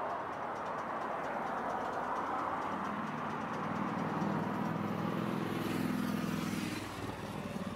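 Street traffic passing a tram stop: a car goes by at the start. About three seconds in, a steady low engine hum sets in and stops near the end, with a hiss rising over it shortly before.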